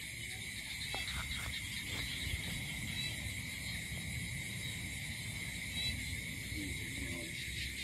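Steady chorus of night insects, crickets, as a continuous high-pitched drone, with a few faint clicks about a second or two in.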